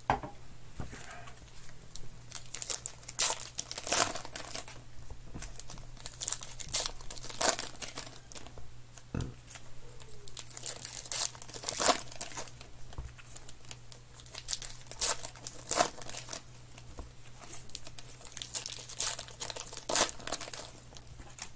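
Baseball card pack wrappers being torn open and crinkled by hand: an irregular run of sharp crackles and rips.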